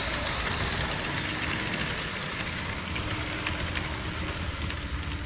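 HO scale model train rolling along its track: a steady rattling rumble with light, irregular clicks of the wheels on the rails.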